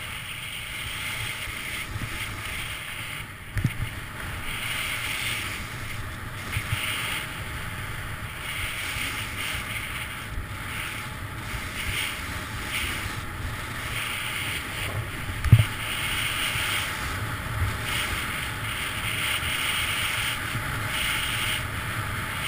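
Skis hissing over groomed corduroy snow while descending a ski run, the hiss swelling and fading about once a second with the turns, over wind rushing across the camera microphone. Two short thumps, the louder one near the end.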